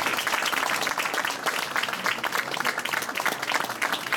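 Audience applauding, many people clapping at once at a steady level.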